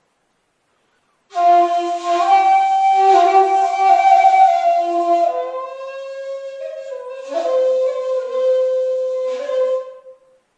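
Handmade 2.8 jinashi shakuhachi playing a slow honkyoku phrase: after about a second of silence, breathy held notes that bend slightly, step down to a lower note about halfway, and die away just before the end.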